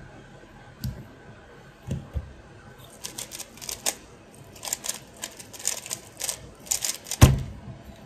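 MoYu Super RS3 M ball-core 3x3 speed cube turned at speed, a fast run of plastic clicks and clacks lasting about four seconds. It ends in a loud thump as the solved cube is put down and the hands hit the timer. Two softer thumps come about one and two seconds in, as the cube and hands are placed for the start.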